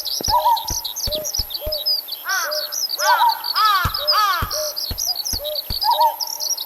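Birdsong sound effect: many quick high chirps throughout, with four louder sweeping chirps in the middle. Underneath runs a steady string of short low blips with a soft thud, about three a second.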